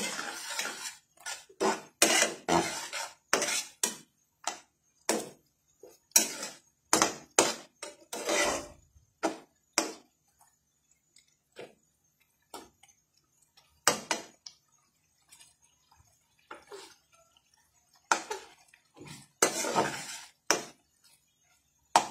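A spatula scraping and knocking against a metal pan as chicken and vegetables are stirred, in irregular strokes. The strokes come thick and fast at first, thin out to occasional taps through the middle, and pick up again near the end.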